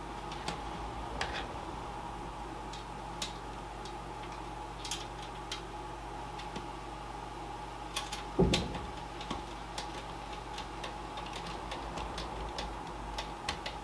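Scattered small clicks and scrapes of a screw being driven into an SSD's mounting holes in a metal PC case, with one louder knock about eight and a half seconds in. A faint steady hum runs underneath.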